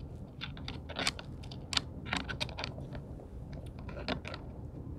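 Irregular small metal clicks and ticks of a countersink drill bit with an adjustable depth-stop collar and spring being handled at a cordless drill's chuck. The sharpest clicks come about one second and just under two seconds in.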